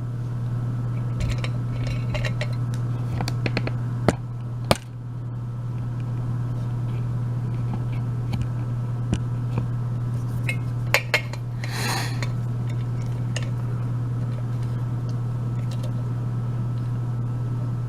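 Small metal lockpicking tools clinking and clicking against each other and the lock cylinder as they are handled and readied. There are a few sharp clicks and a brief scrape about twelve seconds in, over a steady low hum.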